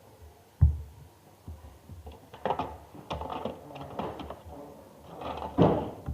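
Glue slime being squeezed and worked by hand. There is one thump, then an irregular run of sticky clicks and crackles, loudest near the end.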